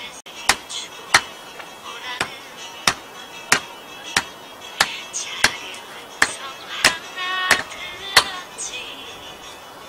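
Hand tool striking again and again at a steady pace, about one sharp knock every two-thirds of a second, as fluorescent-lamp covers are tapped down into the soil to level them as garden-bed edging.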